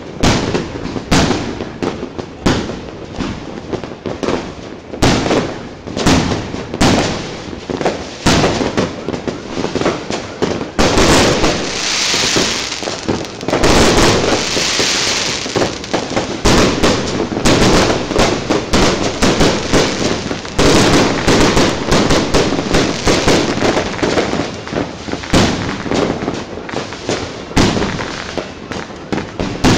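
Aerial fireworks bursting one after another in a dense, continuous barrage of bangs, with a stretch of hissing crackle about midway.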